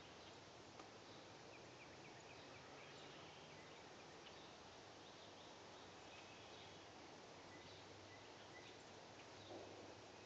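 Near silence: the faint hiss of a quiet woodland, with faint scattered chirps of distant birds and one brief soft rustle near the end.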